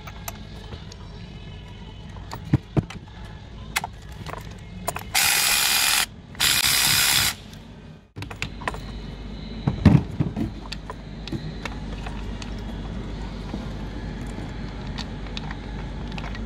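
Hand tools clicking and knocking against engine parts during spark plug and ignition coil removal. Two loud bursts of hiss, each about a second long, come about five and six and a half seconds in. A low steady hum sets in after about eight seconds.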